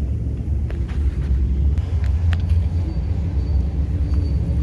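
A car engine idling: a steady low rumble, with a few light clicks in the first half.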